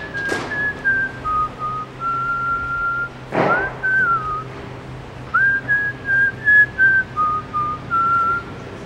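A whistled tune: one clear, pure line stepping between a few notes in short phrases. There is a short noisy hit about three and a half seconds in.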